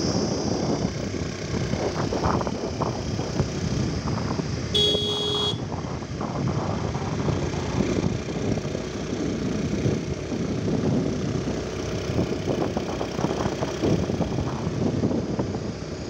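Honda Activa scooter running on the move, with wind buffeting the microphone. A horn beeps once, briefly, about five seconds in.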